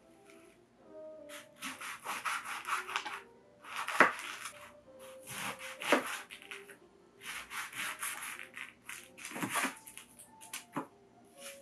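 Kitchen knife sawing through passion fruit rinds on a wooden cutting board: about six scraping strokes, several ending in a sharp knock as the blade meets the board. Soft music plays underneath.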